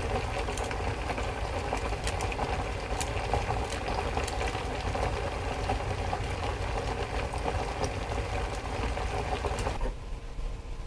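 Paper crinkling and crackling as the paper layer of a disposable transit card is peeled off its RFID inlay by hand: a dense stream of small crackles that cuts off abruptly near the end.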